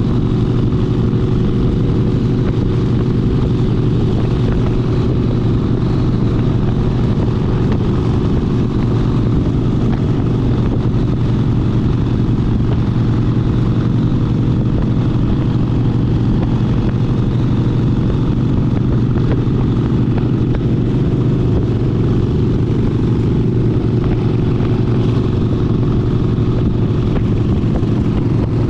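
Harley-Davidson Sportster 72's 1200 cc air-cooled V-twin engine running under way at a steady, even speed, a loud, constant low drone with no clear revs or gear changes.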